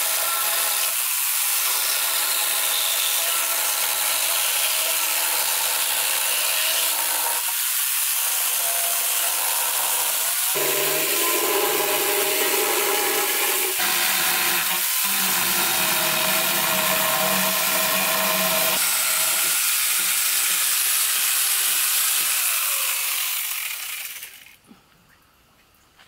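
Corded electric angle grinder fitted with a chainsaw attachment, running at full speed and cutting into a wooden bench. The motor runs down and stops near the end.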